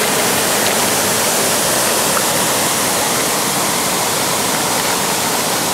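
Waterfall rushing steadily into a pool, an even wash of falling water with no break.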